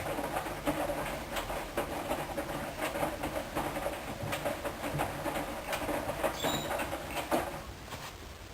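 Hoover Dynamic washing machine turning its drum, with a steady motor hum and irregular clicks and patter of laundry tumbling. The drum stops near the end.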